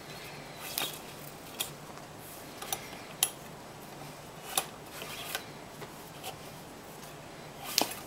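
Paracord being looped and pulled tight by hand while tying a cobra weave: a series of short, irregularly spaced rustles and clicks of the cord handling, the sharpest about three seconds in and near the end.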